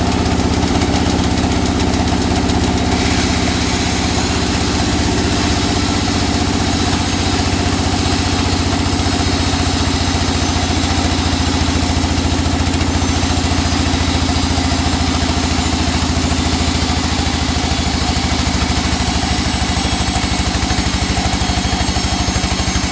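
Sawmill engine running steadily, a constant low drone with a hiss above it that changes a few seconds in and again near the middle.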